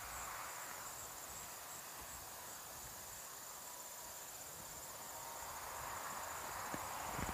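Insects trilling steadily at a high pitch, with a soft rushing noise that swells near the end.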